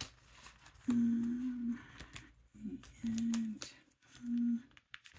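A woman humming a few short held notes at about the same pitch, with light paper rustling and small taps as sticky notes are handled.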